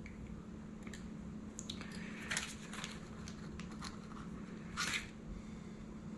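Faint crinkling and rustling of a small clear plastic zip-lock parts bag being handled, with scattered light clicks; the loudest rustles come about two and a half and five seconds in.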